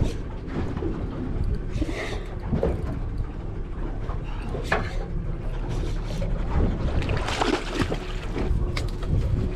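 Wind buffeting the microphone on an open boat, with scattered splashes and knocks. Near the end a hooked fish thrashes and splashes at the surface beside the hull.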